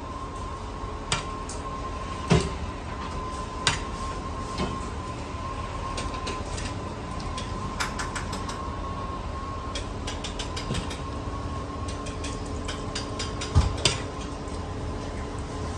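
Metal ladle clinking and knocking against a wok and a ceramic plate as fried rice is scooped out and plated, with louder knocks about two seconds in and again near the end. Under it runs a steady background hum with a thin, high, steady tone.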